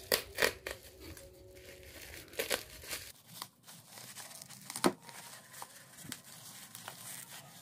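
Plastic bubble-wrap mailer being handled and torn open by hand, crinkling with scattered sharp crackles; the loudest crackle comes about five seconds in.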